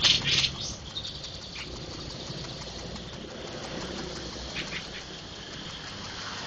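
Small songbird giving a quick run of sharp, high chirps right at the start, then a single chirp a little over a second later and a few more short chirps about four and a half seconds in, over a steady high hiss.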